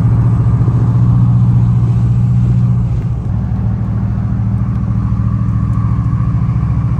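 A vehicle driving on the road, heard from inside the cab: a steady engine and road drone that eases slightly about three seconds in.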